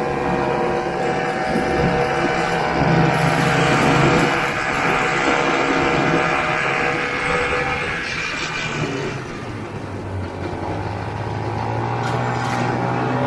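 1969 Ski-Doo Olympique's 320cc single-cylinder two-stroke engine running under way. It eases off about eight seconds in, then picks back up.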